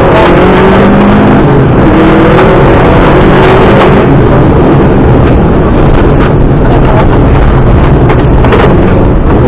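Subaru Impreza rally car's flat-four engine running hard on a rally stage, its pitch rising and falling as the driver works the throttle and gears. It sounds loud and continuous.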